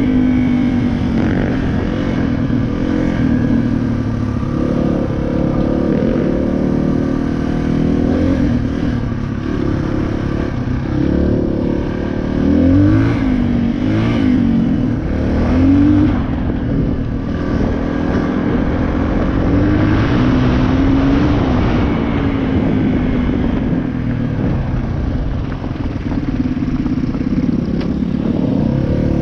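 Dirt bike engine running under way, with several quick revs that rise and fall in pitch about halfway through.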